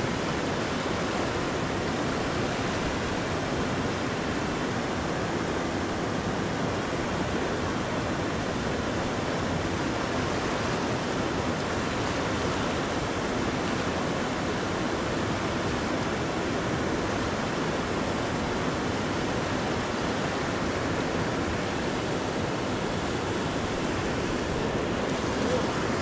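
Fast-flowing river rushing over rapids: a steady, even rush of water that holds unchanged.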